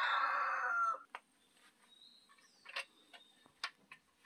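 Rooster crowing: the end of a long crow that falls away about a second in, followed by a few faint ticks and clicks.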